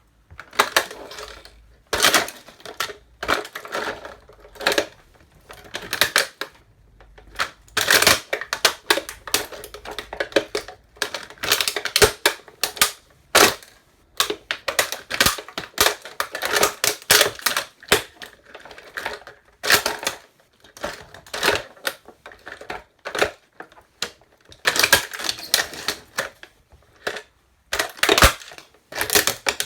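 A toy truck being crushed under boots: sharp cracking, snapping and clattering in irregular clusters, with short pauses between them.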